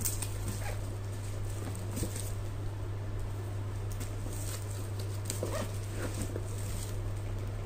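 Shrink-wrapped cardboard box being handled: the plastic wrap crinkles, with short clicks and a few brief squeaks of fingers on the plastic, the clearest about five and a half seconds in, over a steady low hum.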